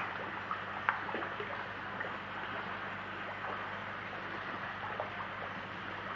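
Pond water splashing and slurping as a crowd of koi churn at the surface to feed, with small sharp splashes, the loudest about a second in, over a steady rush of water and a low steady hum.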